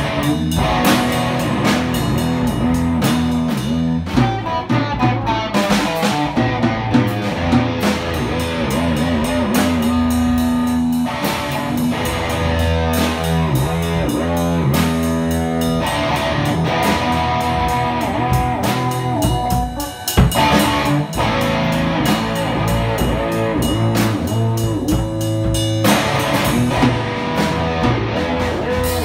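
Live electric guitar and drum kit playing an instrumental together, the guitar amplified through a Fender amp. The band drops out briefly about two-thirds of the way through, then comes back in.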